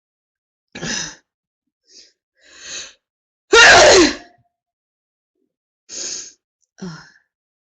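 A woman sneezing in a prolonged sneezing fit: short breathy sounds and a rising intake of breath, then one loud voiced sneeze about three and a half seconds in, followed by two shorter breathy sounds.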